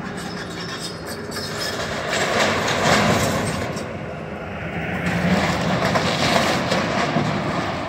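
Excavator demolishing a building: crunching and clattering debris and scraping metal over the machine's running diesel engine, swelling louder about three seconds in and again from about five to seven seconds.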